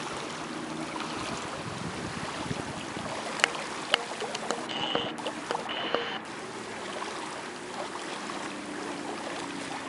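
Steady rush of water along a sailing yacht's hull, with wind on the microphone. A couple of sharp knocks come a little before the middle, then two short high tones.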